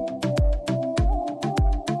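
Background music with a steady electronic beat: a deep kick and sharp percussive hits about twice a second under a sustained synth melody.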